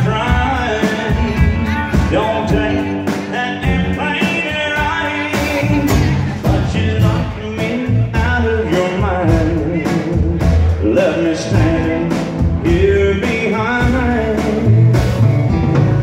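Live country band playing an instrumental break between verses: a lead guitar line with bent, gliding notes over acoustic guitar, upright bass and drums.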